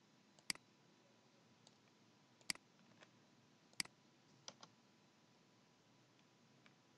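A few single clicks at a computer, the sound of clicking and pressing keys while entering a terminal command. There are three sharp clicks spaced one to two seconds apart, then a softer quick pair about four and a half seconds in, against near-silent room tone.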